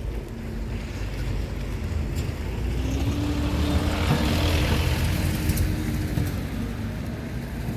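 A motor vehicle passing over a steady low rumble, growing louder to a peak about halfway through and then fading.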